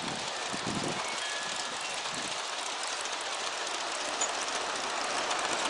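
G-scale model freight train of refrigerator cars rolling along outdoor track: a steady rolling hiss with many fine clicks from the wheels on the rails, and a few low thumps in the first second.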